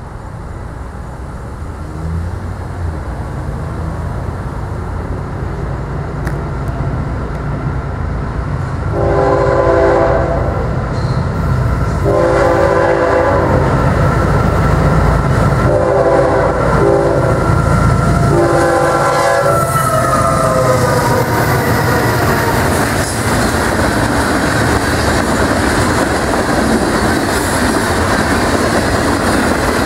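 Florida East Coast diesel freight train approaching fast and passing, its locomotive rumble building. The lead locomotive's horn sounds four blasts, long, long, short, long, the grade-crossing signal. After that come the wheels clattering and the cars rushing past.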